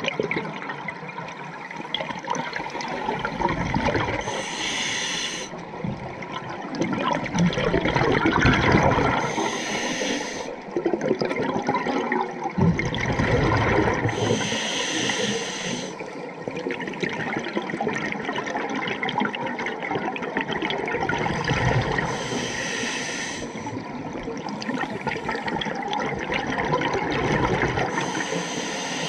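Scuba diver breathing through a regulator underwater, heard through a waterproof camera housing. A hissing inhale comes about every five to six seconds, each followed by a bubbling exhale.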